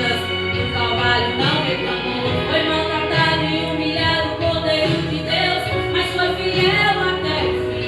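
Gospel song playing: sung vocals over band accompaniment.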